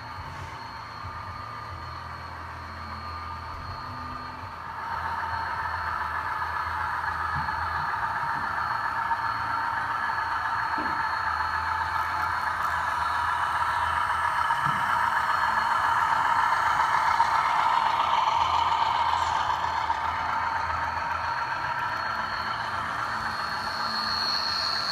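HO scale model trains running on the layout track: a steady mechanical running noise of wheels on rail and drive motors, with a low hum, that grows louder from about five seconds in as a diesel locomotive approaches.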